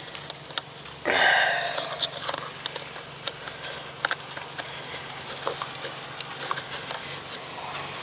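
Hands handling a plastic ignition coil and its wiring connector in an engine bay: scattered sharp clicks and light knocks, with a loud rustle about a second in, over a steady low hum.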